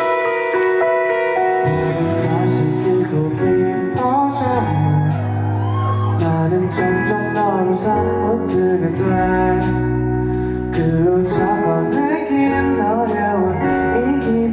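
Live band playing a ballad-pop song's introduction: held guitar chords at first, then bass coming in about two seconds in, with drums and a gliding melodic line over a steady beat.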